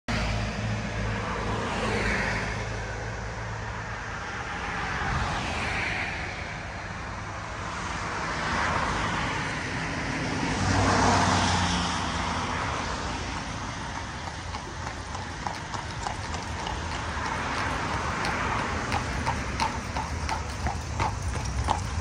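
Cars passing on a road, their tyre and engine noise swelling and fading every few seconds. From about two-thirds of the way in, a horse's hooves clip-clop on the pavement at a steady trot, getting louder as a horse and buggy approaches.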